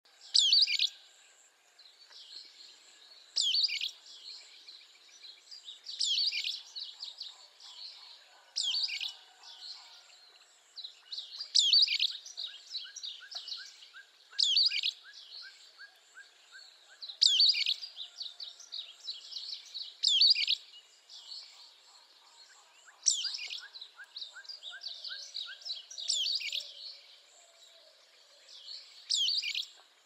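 Sulphur-bellied flycatcher calling: a loud, high, squeaky call repeated about every three seconds, eleven times in all. Other birds sing and trill more quietly underneath.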